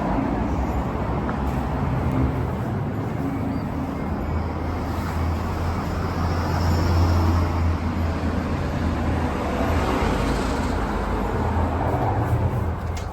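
Road traffic passing, with a low engine rumble from a heavy vehicle swelling and fading in the middle.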